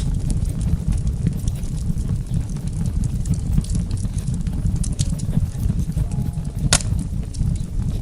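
Wood fire burning in a fireplace: a steady low rumble of flame with scattered sharp crackles, and one louder pop late on.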